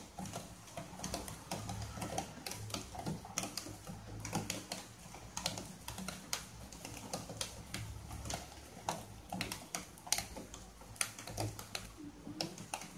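Butter crackling and spitting under bread slices toasting on a hot buttered tava: irregular sharp pops several times a second over a low steady hum.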